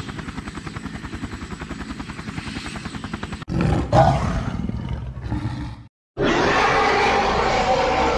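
Helicopter-style rotor chop, about five beats a second, for the first three and a half seconds. It cuts to a monster's growl, and after a brief silence a long, loud kaiju roar follows.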